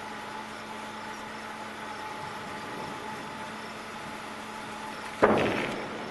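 A steady background hum with a faint even tone, then about five seconds in a single sharp clunk, like handling or a door shutting, that fades out within half a second.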